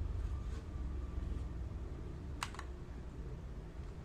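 Key presses on a Keychron K2 mechanical keyboard with red switches: a faint press about half a second in and a sharp key clack about two and a half seconds in, over a low steady hum.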